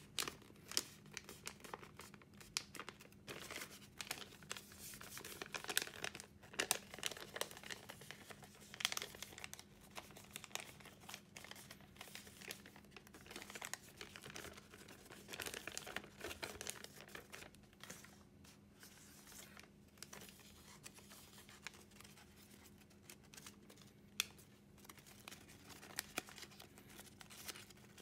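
A 35 cm sheet of origami paper rustling and crinkling as it is folded and pressed by hand: irregular soft crackles, busier in the first half and sparser later. A faint steady hum lies beneath.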